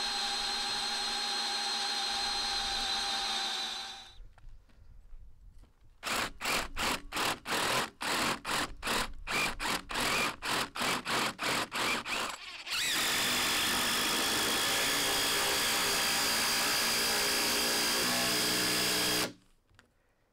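Power drill driving 150 mm stainless steel screws down into larch roof rafters. It runs steadily for about four seconds, stops, is then run in short stop-start pulses about twice a second for several seconds, and finally runs steadily again for about six seconds before cutting off near the end.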